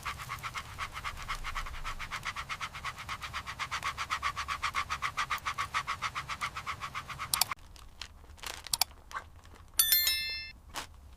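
Dog panting rapidly in an even rhythm of about six or seven breaths a second, stopping abruptly about two-thirds through. After it come a few sharp clicks and a brief bright chime.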